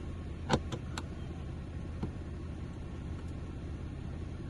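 A few sharp clicks from tools and plastic trim being handled inside a car's footwell, the loudest about half a second in, over a steady low hum.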